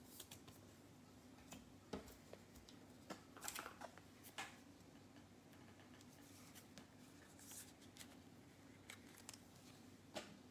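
Mostly near silence with a low steady hum, broken by a handful of faint clicks and taps of trading cards and plastic card stands being handled on a table; the sharpest click comes near the end.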